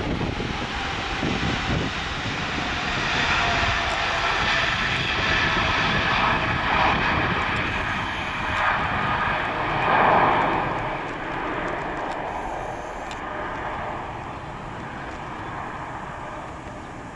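Boeing 777-300ER's two GE90-115B turbofan engines at takeoff power during lift-off and climb-out. A loud rush of jet noise carries steady whining tones on top; it peaks about ten seconds in, then fades as the aircraft climbs away.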